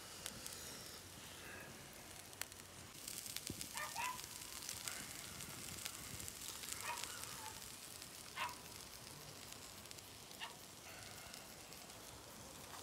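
Wood campfire crackling faintly with a steady hiss and scattered pops. A dog barks four times, short single calls a couple of seconds apart.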